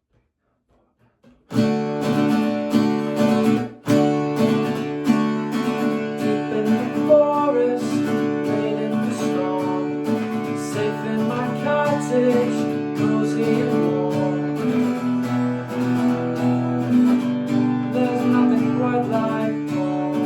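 Acoustic guitar strummed, opening a song; it comes in about a second and a half in and stops for a moment a couple of seconds later before playing on.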